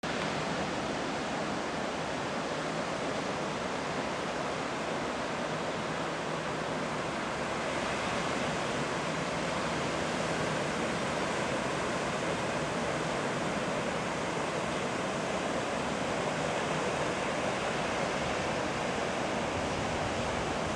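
Ocean surf breaking on the shore, heard as a steady, even rush of wave noise with no distinct single breakers.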